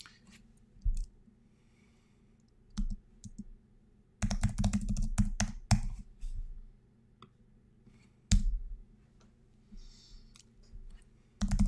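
Typing on a computer keyboard: a quick run of keystrokes about four seconds in, with a few single key clicks before and after it.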